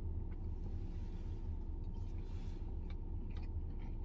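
Faint mouth sounds of chewing a piece of tuna belly nigiri, a few soft clicks and a brief hiss, over a steady low background hum.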